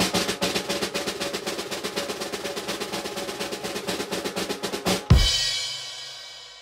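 Snare drum roll for about five seconds, ending in one loud crash hit with a cymbal that rings and slowly fades away.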